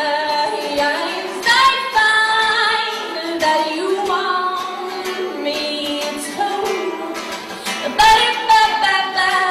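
A woman singing a pop melody over music, with long held notes.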